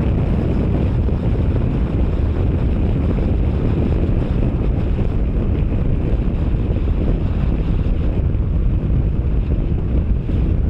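Wind buffeting the microphone at riding speed, with a Yamaha MT-07's parallel-twin engine running steadily underneath.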